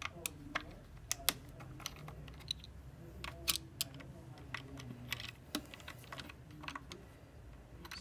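Small Torx T10 screwdriver backing out the screws of a hard drive's metal mounting bracket: irregular sharp clicks and ticks as the driver works the screws.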